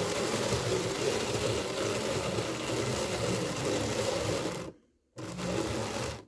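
Hand-cranked drum carder turning steadily, its toothed drums drawing wool locks in from the feed tray with a steady noisy whir. The cranking stops about three-quarters of the way through, runs again for about a second, then stops.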